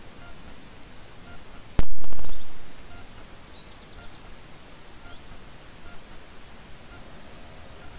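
A sharp click and a loud burst lasting under a second that fades out, then small birds calling in a quick run of short, high chirps for about a second and a half.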